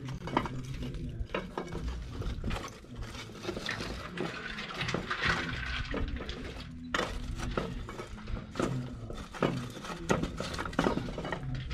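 Irregular clinks and knocks of cookware and utensils, the clatter of a pot being handled while cooking.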